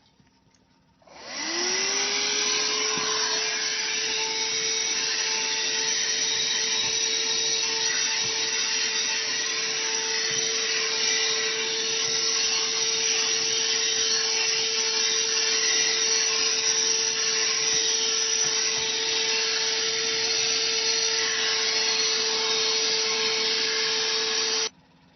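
OSHOTTO 2-in-1 car vacuum cleaner and tyre inflator switched on: its motor spins up within a second to a steady whine over a loud rushing hiss, runs evenly, then cuts off suddenly near the end.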